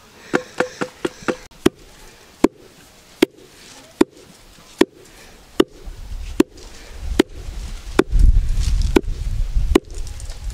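Wooden pestle pounding coarse meal in a wooden mortar: a quick run of about five lighter knocks, then single sharp thuds at an even pace of roughly one every 0.8 seconds. A low rumble swells under the last few strokes.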